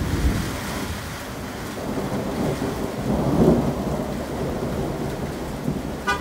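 Steady heavy rain with thunder rumbling through it, the rumble swelling about three seconds in.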